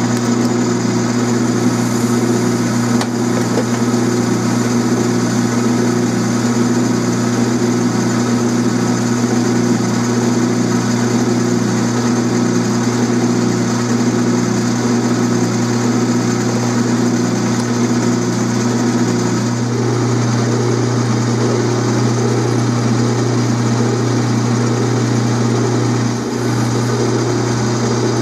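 Small Atlas metal lathe running steadily, its motor and drive making a constant hum, while facing the end of a steel bar. The lathe is drilling into the bar's end from the tailstock near the end.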